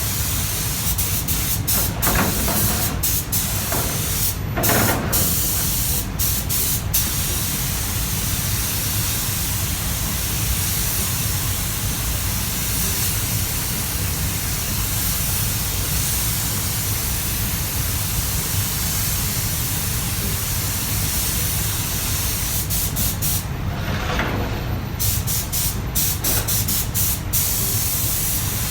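Compressed-air spray gun hissing steadily as it sprays. The hiss drops out briefly a few times, near the start and again near the end.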